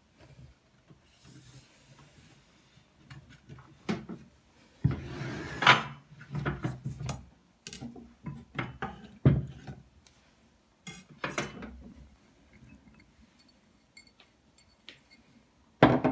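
Kitchen utensils and glass bowls handled on a wooden cutting board: scattered knocks, clinks and scrapes. The busiest stretch runs through the middle, and a single loud knock comes near the end.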